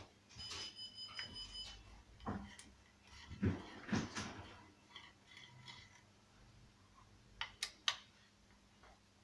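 Clicks and knocks of tools and metal chainsaw parts being handled, with a brief metallic ring about half a second in, two heavier knocks around the middle and two sharp clicks near the end.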